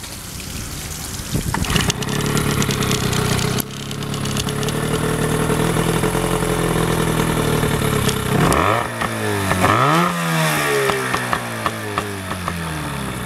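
1996 Evinrude 9.9 hp two-stroke outboard motor catching about two seconds in and running steadily. In the second half it is revved up and let back down twice.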